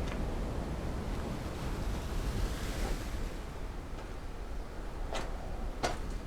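Sea surf and wind as a steady low rumble, with a wave washing in a couple of seconds in. Two short knocks come near the end.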